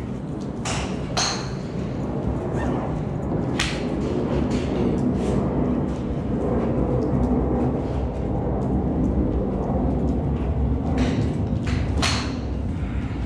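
Golf irons striking balls off driving-range mats: a handful of sharp cracks, the strongest about three and a half seconds in and near the end, over a steady low rumble.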